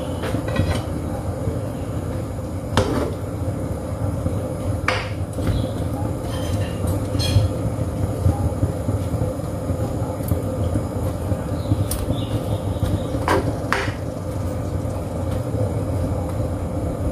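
Chicken broth cooking in a wok on a gas stove, a steady low rumble, with a metal spoon clinking sharply against the pan a few times as the meat and vegetables are stirred.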